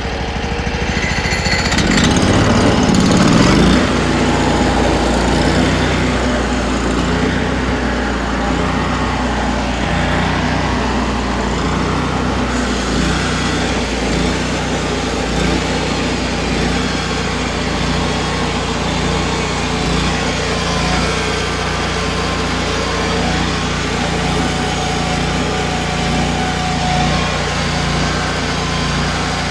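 Small gasoline engine of a Hudson band sawmill running steadily, swelling louder for a couple of seconds about two seconds in.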